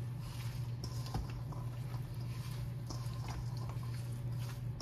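Spiced mashed potato filling being mixed in a bowl: soft, irregular squishing with a few faint clicks, over a steady low hum.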